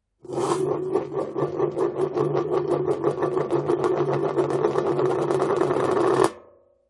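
Metal tin dropped onto a hard surface and turning, rattling rapidly with a steady metallic ring for about six seconds, then settling with a final clatter and a short ringing fade.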